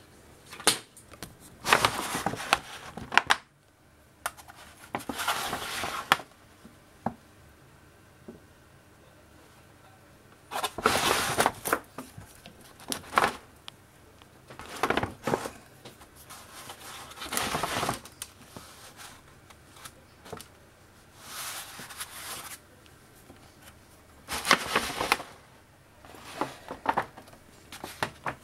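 Irregular rustling and scraping handling noises, each lasting a second or two, from a hand and the camera moving close around an antique electric motor. The motor itself is not heard running.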